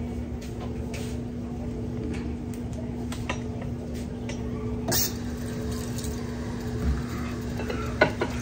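Dishes and pans clinking and knocking during hand dishwashing at a sink, a sharp clatter about five seconds in and another near the end, over a steady low hum.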